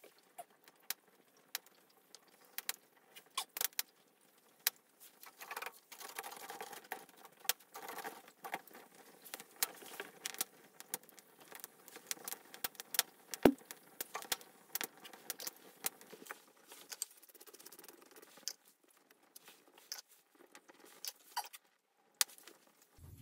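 Open wood fire crackling and popping with irregular sharp snaps over a faint hiss, one louder pop about thirteen seconds in.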